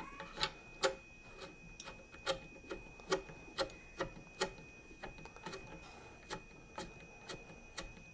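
Bed-leveling thumb nuts on a 3D printer being turned by hand: a fairly even run of short clicks and rubs, about two a second, as each nut is screwed down against its spring. A faint steady high-pitched whine sounds behind it.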